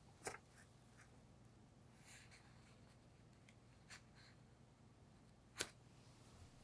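Faint, sparse crinkles and ticks of baking paper being peeled off a no-bake cheesecake where the batter sticks to it, over a low room hum; the sharpest tick comes a little after five seconds in.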